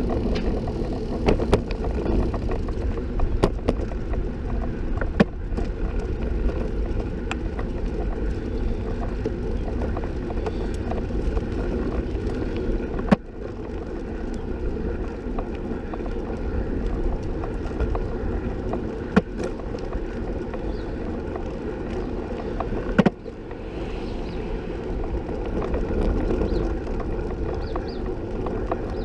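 Riding noise from a recumbent trike rolling along paved streets: a steady low rumble of tyres on the road, with scattered small clicks and rattles and two sharp knocks, one about halfway through and one about three-quarters of the way in.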